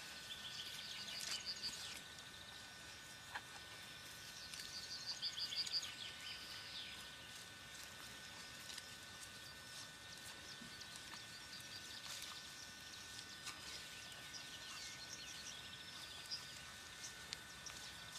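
Quiet outdoor ambience with faint, high, evenly pulsed trills that come in short runs a few seconds apart, the loudest about five seconds in, over a faint steady high tone.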